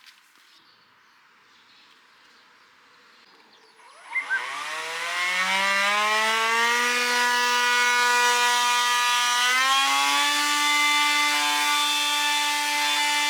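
Battery-powered blower started about four seconds in: two short clicks, then its electric motor and fan spin up with a rising whine and run steadily, stepping up to a higher speed about two-thirds of the way through.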